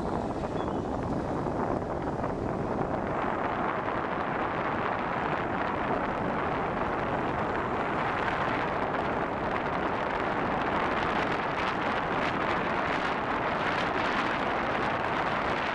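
Steady rushing road noise of a car driving on an asphalt road: tyre roar and wind, growing louder about three seconds in.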